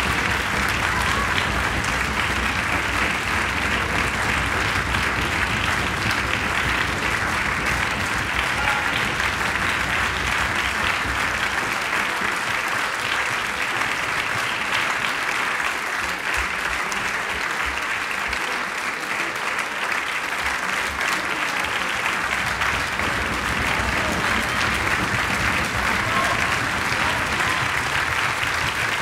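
Theatre audience applauding steadily, a dense unbroken clapping.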